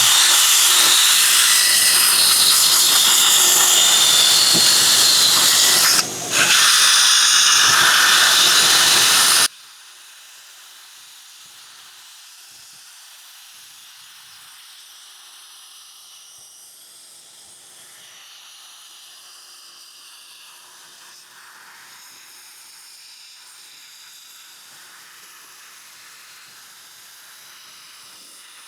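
Electric drill driving an 800-grit sanding pad across wet car paint: a loud, steady hiss of the pad on the wet surface. It pauses briefly about six seconds in and cuts off suddenly about nine seconds in, leaving only a faint steady hiss.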